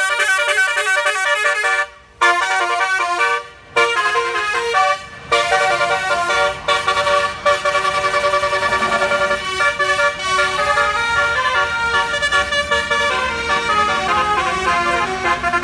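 A bus's Basuri 'telolet' multi-tone air horn playing a quick jingle of short stepped notes, with three brief breaks in the first five seconds before it sounds on without stopping.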